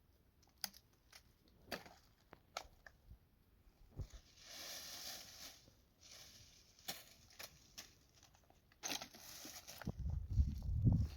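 Dry twigs and brush being handled, with scattered sharp snaps and crackles and two short rustling swells. A low rumble starts near the end.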